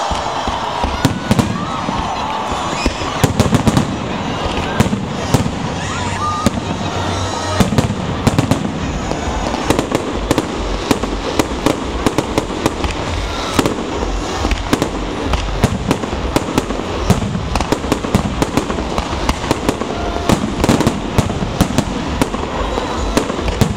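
Fireworks salute going off: many sharp bangs and crackling bursts in quick, irregular succession, over a constant din of people's voices.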